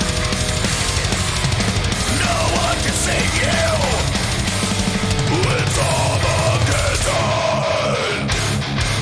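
Thrash metal song playing: distorted electric guitars over a dense drum-and-bass wall, with a lead line that bends up and down in pitch through the middle. Near the end the top end thins out as the arrangement changes.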